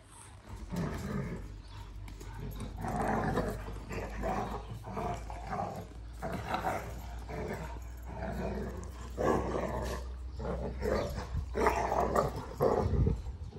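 Kangal puppies growling as they play-fight, in short irregular bouts that grow louder towards the end.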